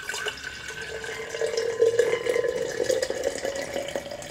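Broth poured in a steady stream from a glass bowl into a glass mason jar, the filling tone rising slowly in pitch as the jar fills.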